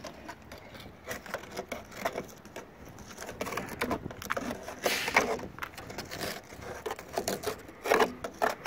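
A metal strip scraping inside a rusted-through UAZ body sill, knocking packed dried mud and grit loose so that it patters out of the hole onto the ground. The scraping and pattering come unevenly, with louder rushes of falling dirt about five seconds in and again near the end.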